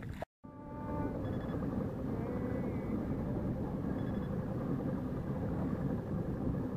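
Steady low rumbling noise of a fishing boat under way, after a brief cut to silence just after the start.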